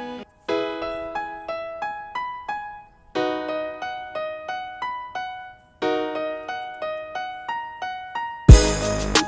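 Background music: an electric piano or keyboard playing a melody of single notes in short phrases, with a full beat with drums coming in near the end.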